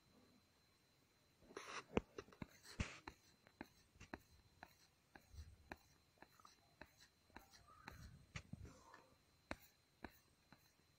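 Faint rustling of cloth and irregular light clicks as fabric is handled and fed at a sewing machine, starting about a second and a half in; no steady machine run is heard.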